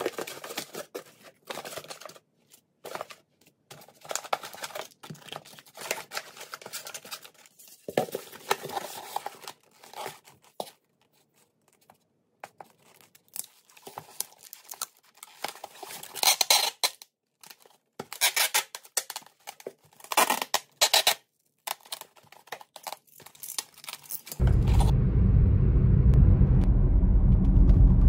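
Plastic-wrapped meat packs crinkling and a styrofoam box scraping and squeaking as the packs are put into it, then several short, sharp tearing sounds while the box lid is closed and sealed. About 24 seconds in, this gives way to the steady low rumble of road noise inside a moving car.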